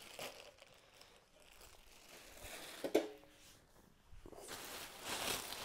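Plastic bubble-wrap packing crinkling and rustling as it is handled, with one sharp knock that rings briefly about three seconds in and louder crinkling over the last second and a half.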